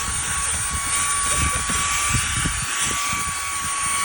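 Eufy H30 cordless handheld vacuum running steadily with a high whine and a rush of air, its nozzle bumping and scraping softly over the car's carpet.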